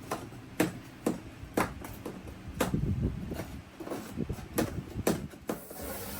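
A series of sharp knocks or taps, roughly two a second at an uneven pace, stopping a little before the end.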